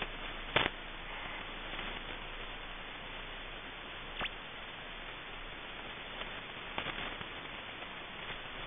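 Shortwave receiver hiss on 5000 kHz, broken by a few brief clicks and chirps as the sweeping station's signal passes through the receiver's passband. The loudest comes about half a second in, a quick thin one just after four seconds, and a small cluster near seven seconds.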